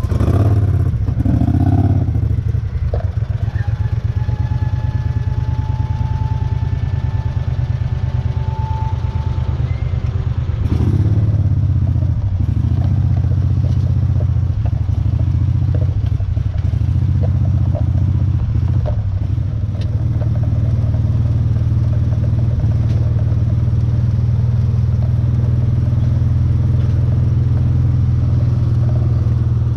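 Gator utility vehicle's engine running steadily, with some clatter over it.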